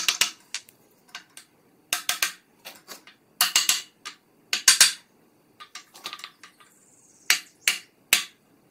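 Hammer blows on an aluminium drift block, driving a Renault Goélette 4x4's wheel shaft home into the axle housing. A series of sharp strikes, irregularly spaced, some coming in quick clusters.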